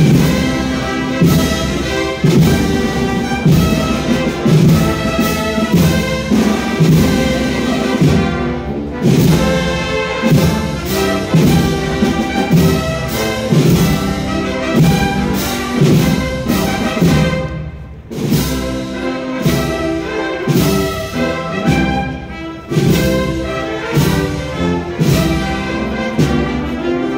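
Processional wind band playing a Spanish processional march (marcha procesional): brass and woodwinds sustaining a melody over a steady drum beat.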